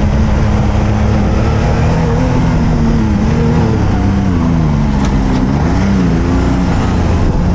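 Can-Am Maverick side-by-side's 240-horsepower turbocharged engine running hard under load off-road, its pitch rising and falling several times as the throttle is worked, over a heavy low rumble from the drivetrain and terrain.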